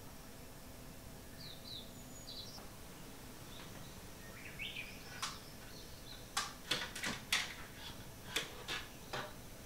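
A few faint bird chirps over a quiet room, then a cluster of short sharp rustles of duvet and bedding as a sleeper stirs, from about five to nine seconds in.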